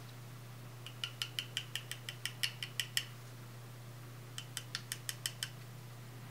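Small metal parts clicking as they are worked by hand onto a tiny blade bait. There are two quick runs of sharp, ringing, ratchet-like clicks at about six a second: about a dozen clicks, then after a pause about seven more.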